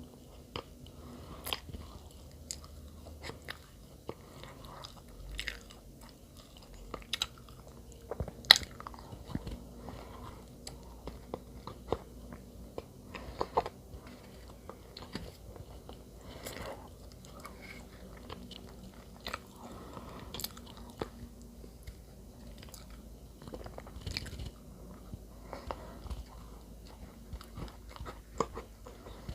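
A person eating bread close to the microphone: soft chewing with frequent small crunches, mouth clicks and smacks, the loudest about a third of the way in.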